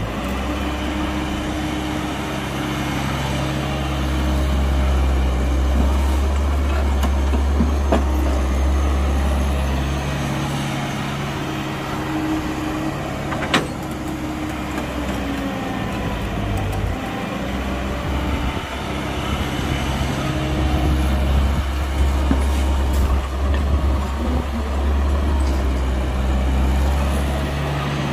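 Heavy diesel engine of construction machinery working. It runs up under load for several seconds, eases back, then loads up again, with one sharp knock about halfway through.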